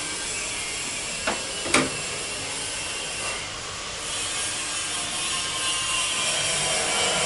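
Plastic water pipe and push-fit plumbing fittings being handled and fitted by hand, with two sharp clicks about a second and a half in, over a steady hiss that grows a little louder after about four seconds.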